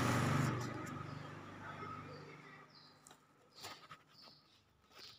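A faint low hum fades away over the first two seconds or so, then a few light knocks as a flat steel bar is shifted on a plywood workbench, with faint bird chirps.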